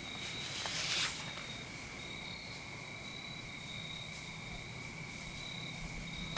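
Crickets and other insects chirring in a steady, high, even drone, with a second higher trill coming and going. A brief swish of noise builds and stops about a second in.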